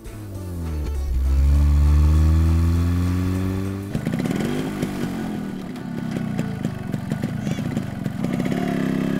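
A low, smooth vehicle engine sound slowly rising in pitch. About four seconds in it changes to a motorcycle engine that revs up briefly and then runs with a rough, fluttering note.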